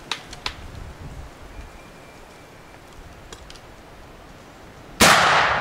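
A black-powder muzzleloading rifle fires a single shot about five seconds in: a sudden loud blast that rings on and dies away.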